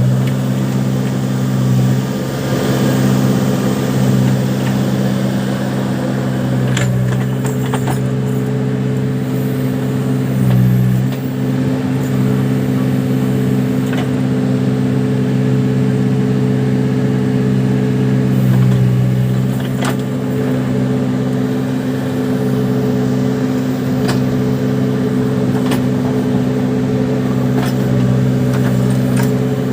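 Case 580 Super backhoe loader's diesel engine running steadily while working, its pitch shifting a few times. A few short sharp knocks are heard along with it.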